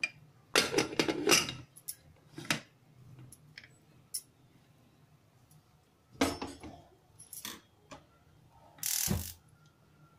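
Aluminium pressure cooker lid clattering and scraping against the pot as it is fitted and twisted into place, in several separate bursts, the loudest about a second in. Near the end, a short hissing burst with a low thud.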